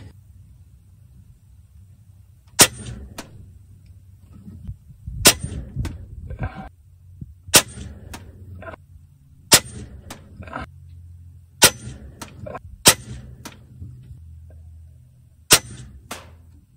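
Kalibergun Cricket 2 Tactical .22 PCP air rifle with a 0dB moderator fired seven times, each shot a sharp, short crack, with a fainter click about half a second after each one.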